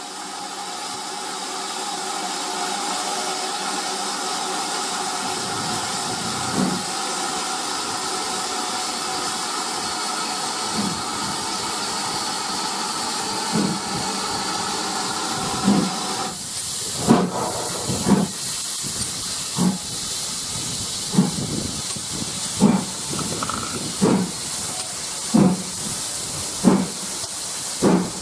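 Steam locomotive getting under way: a steady hiss of steam while it stands, then slow exhaust chuffs, a few scattered at first and then a regular beat about every second and a half that quickens slightly. The hiss cuts off about sixteen seconds in.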